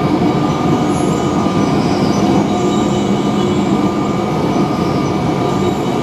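Metro-Cammell electric multiple unit train running along the track, heard from inside the leading car: a dense, steady rumble of wheels on rail with a thin, steady high whine over it.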